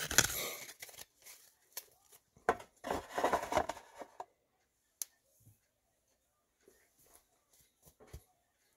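Trading cards being handled and shuffled through by hand: papery rustling and scraping with short clicks, busiest in the first four seconds, one sharp click about five seconds in, then only a few faint ticks.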